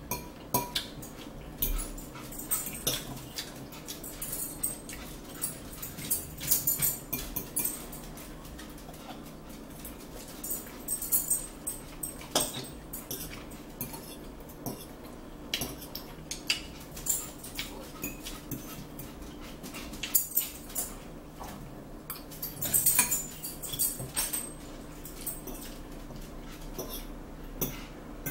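Metal forks clinking and scraping against plates and a salad bowl as people eat, an irregular run of short sharp clicks, with a quick flurry of them a little before the end.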